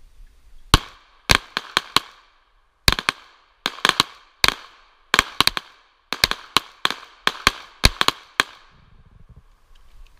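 Semi-automatic pistol fired in quick strings of shots, about two dozen in all, with short pauses between groups. Each shot is sharp and followed by a short echo.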